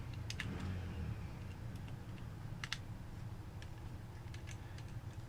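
A few scattered light clicks and taps of small plastic controller parts and a screwdriver being handled, over a low steady hum.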